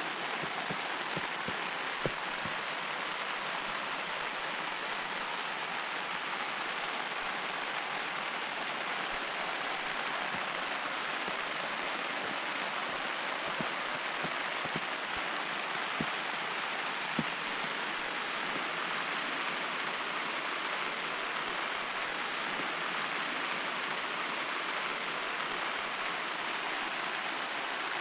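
Steady rain, with a few single sharper drop ticks.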